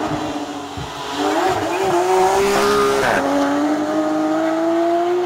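Rally car engine accelerating hard as the car passes: the pitch climbs, drops once with an upshift about three seconds in, then climbs again as the car pulls away.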